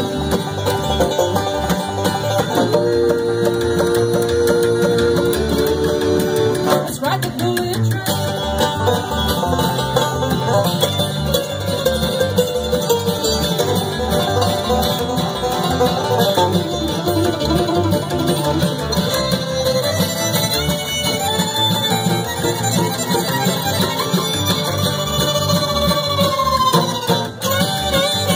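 Live bluegrass band playing an instrumental break at a very fast tempo: fiddle, banjo, mandolin, acoustic guitar and upright bass, with long held fiddle notes for the first few seconds before the melody starts moving.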